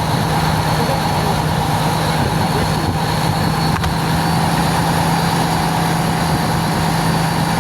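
Ship's diesel engine running steadily, a constant drone with an even rumble underneath and no change in speed.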